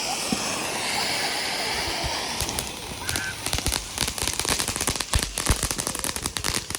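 Fireworks going off: a steady hiss of spraying sparks, then from about two and a half seconds in a rapid run of sharp crackling pops that grows denser.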